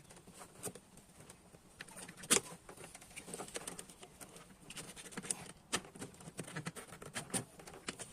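Scattered light metallic clicks and clinks of hand tools working on fuel-hose clamps, with one louder knock about two seconds in.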